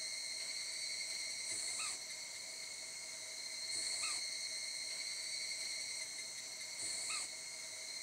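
Fairy pitta giving its alarm call: three short, arched notes about two to three seconds apart, an adult's warning while its young are newly fledged. A steady high insect drone runs underneath.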